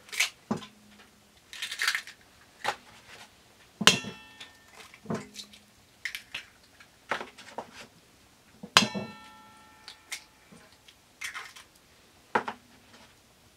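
Eggs being cracked one after another against the rim of a stainless steel mixing bowl: about a dozen sharp taps, a few of them leaving the metal bowl ringing briefly.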